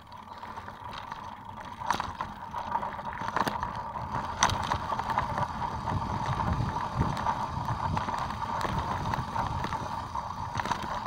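Mountain bike rolling over a rough dirt trail: tyre rumble and frame rattle, with a few sharp knocks from bumps and a steady high buzz running underneath. It grows louder over the first two seconds as the bike picks up speed.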